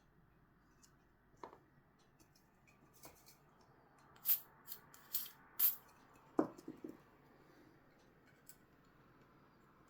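Handling and working 3D-printed plastic parts: a light knock, then four or five short hissing strokes around the middle, and another knock followed by a few quick rattles.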